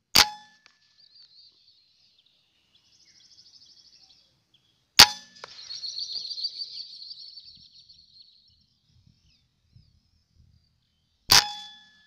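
Three air rifle shots, each a sharp crack with a short metallic ring, about five to six seconds apart. After the second shot comes a high fluttering sound lasting about three seconds.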